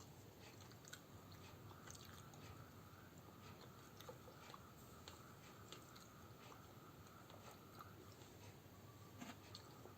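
Faint chewing of food, with soft, scattered mouth clicks, over a faint steady high hum.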